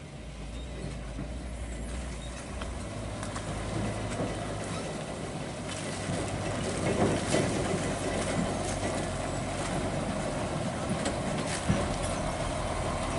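Hino 500 FM320TI tractor truck's diesel engine running as it pulls a lowboy trailer slowly over a rutted dirt road, growing steadily louder as it approaches. A few short clanks come through around the middle and near the end.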